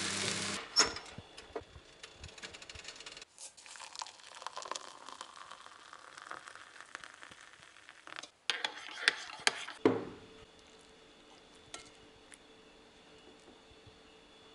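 Frying sizzle in a pan that cuts off suddenly under a second in, followed by scattered light clinks, scrapes and knocks of kitchen utensils and dishes, with a cluster of sharper knocks about nine to ten seconds in.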